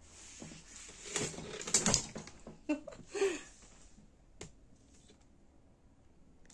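Handling noise as a crocheted slipper is pulled onto a foot: fabric rustling and light knocks bunched together for about a second, two short murmured sounds in the middle, and one sharp click a little later.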